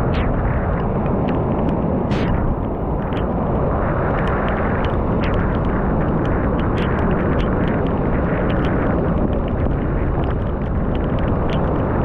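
Storm wind buffeting a GoPro microphone in a steady, heavy rumble, mixed with surf breaking on the beach. Scattered sharp ticks of raindrops strike the camera.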